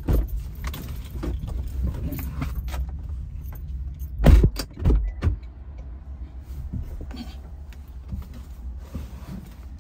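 Someone getting out of and leaning back into a parked car: rustling and handling noises at the driver's seat and open door, with loud thumps about four and five seconds in, over a steady low rumble.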